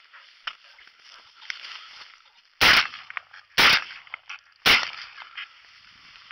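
Shotgun fired three times in quick succession, about a second apart.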